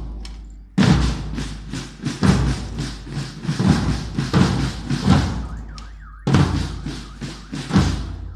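Marching band drums, bass drums and snare drums, beating a steady march rhythm with several strokes a second. They pause briefly just after the start and again about six seconds in.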